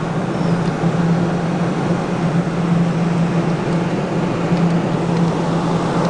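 A steady low mechanical hum under an even rushing noise, with no distinct knocks or changes.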